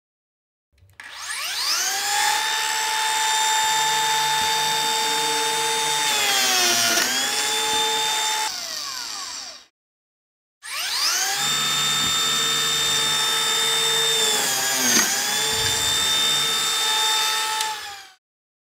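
Lamello groove-cutting machine (biscuit joiner) run twice: each time the motor spins up with a rising whine, runs steadily, dips briefly in pitch under load as the cutter plunges into the panel, then switches off.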